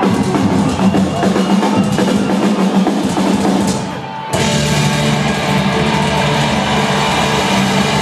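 Live metal band playing loudly through an arena PA: busy drumming for about four seconds, a brief drop, then the full band crashes in with guitars holding notes over the drums.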